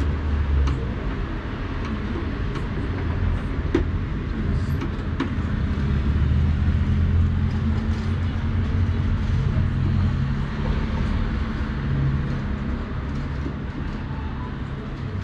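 Street traffic outside: a steady low rumble of passing vehicles that swells in the middle, with a few light clicks and taps over it.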